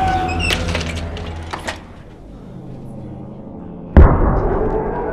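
Horror-film sound-effect stingers: the ringing tail of a gong-like hit fades, with a few sharp clicks in the first two seconds, then a second loud gong-like hit about four seconds in rings on and slowly dies away.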